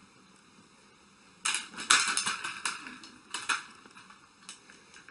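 A quick clatter of sharp clicks and knocks lasting about two seconds, starting a second and a half in, followed by a few scattered clicks.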